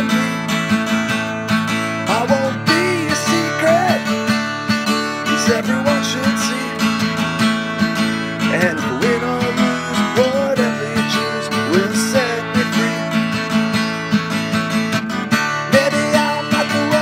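Acoustic guitar strummed in a steady rhythm, playing a song accompaniment.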